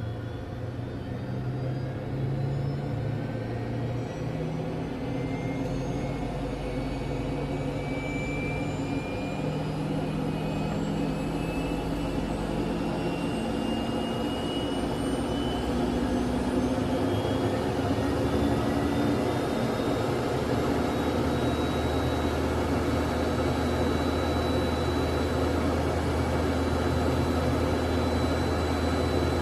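Learjet engine spooling up during start, heard from inside the cabin: a high whine climbs slowly in pitch over a steady rumble and grows louder, then settles about halfway through into a steady idle with a constant high whine.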